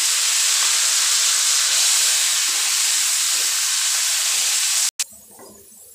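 Tomato paste and chicken sizzling loudly in hot oil in a karahi, a steady hiss while it is stirred with a wooden spatula. The sizzle cuts off abruptly about five seconds in.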